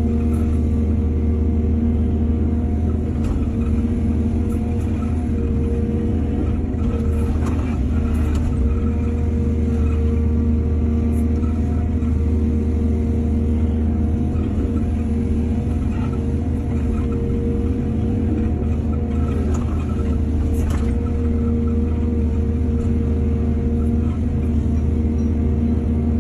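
Excavator's diesel engine running steadily, with a few short clanks now and then.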